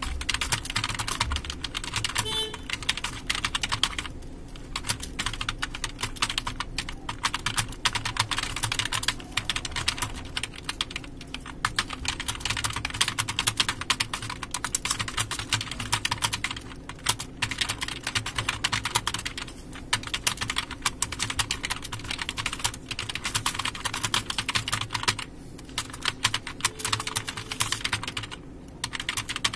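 Fast typing on a computer keyboard: a quick, continuous run of key clicks with a few brief pauses.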